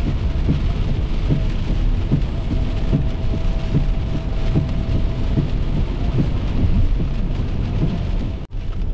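Heavy rain drumming on a car's windscreen and roof under a steady low rumble of road noise, heard from inside the cabin. The sound drops out abruptly near the end.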